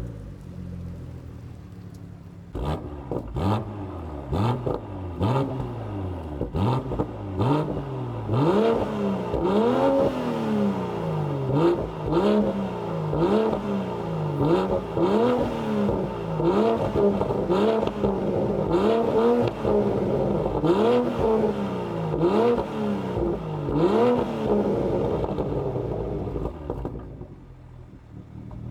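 BMW M240i's B58 turbocharged inline-six, through a valved aftermarket sport exhaust with stock downpipes, idling and then blipped over and over, the pitch rising and falling about once a second, with sharp cracks between the revs before it settles back to idle near the end.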